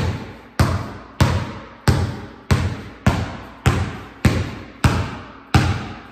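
Basketball dribbled with one hand on a concrete garage floor, about ten evenly spaced bounces at a steady pace of a little under two a second, each ringing out with a long echo.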